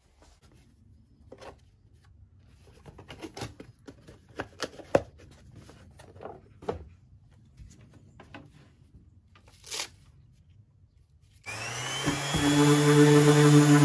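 Scattered light clicks and taps from handling a box of paper sanding discs. Near the end a DeWalt random orbital sander starts with a short rising whine and then runs steadily, sanding the wooden lid of an old chest.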